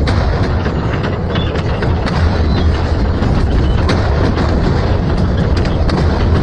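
Double-shaft metal shredder running under load, a steady low rumble with frequent sharp cracks and clanks as its cutters tear through metal.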